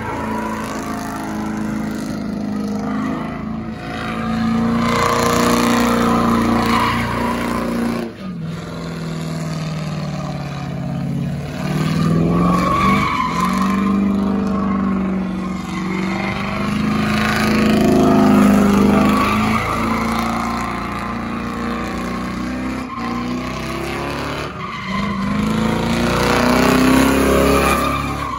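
A car spinning donuts: its engine revs high and drops in repeated surges while the tires squeal and screech on the asphalt, loudest in several waves through the stretch.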